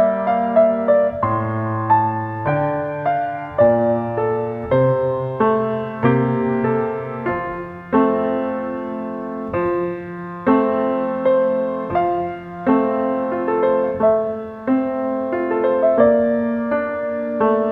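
Grand piano played solo: a slow melody over held chords, with a new note or chord struck about every half second to a second.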